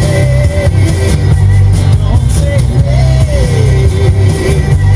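Rock music with a heavy bass line and a gliding melody line above it.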